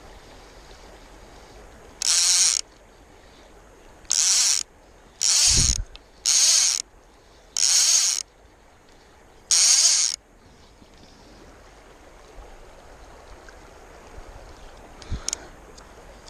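Fly reel's click-and-pawl drag ratcheting in six short bursts of about half a second each, spread over some eight seconds.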